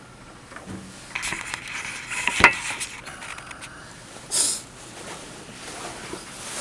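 Clicks, rattles and knocks of a mesh office chair being grabbed and moved, with one sharp knock about two and a half seconds in and a brief rustling swish near the middle.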